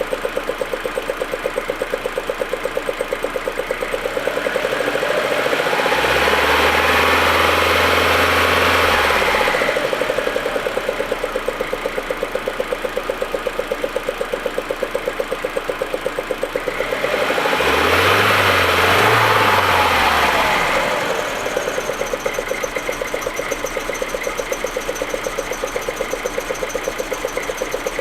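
Audi A4 1.8T turbocharged four-cylinder engine idling with a steady pulsing beat, revved up twice for a few seconds each time and settling back to idle. The engine has a rough idle and misfire that the owner reports mainly when it is cold.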